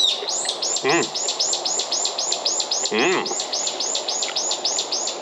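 A high, rapidly repeated chirping call from an insect or bird, about four or five rising-and-falling notes a second, running on steadily. Two short low vocal sounds from a man break in, about a second in and again near three seconds.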